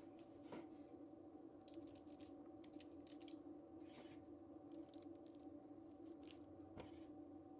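Near silence: a faint steady hum with scattered soft ticks and rustles from cookie dough and a glass being handled on a parchment-lined baking tray.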